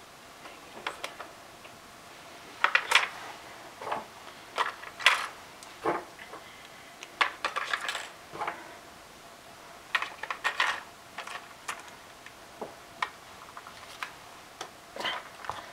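Batteries and the camera's plastic battery compartment clicking and knocking as AA cells are handled and loaded into the camera, a string of irregular sharp clicks with short pauses between them.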